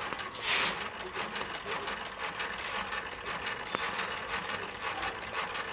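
Steam locomotive's mechanical lubricator being turned by its hand crank: a fast, even mechanical clicking, with one sharper click about halfway through. It is pressing superheated-steam oil through the lines to the cylinders and valves, and the lines are now full.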